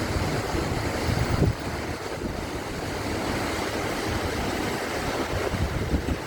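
Heavy rain pouring in strong wind during a summer storm, with gusts buffeting the microphone in uneven low thumps. The gusting is strongest in the first second and a half, then eases a little.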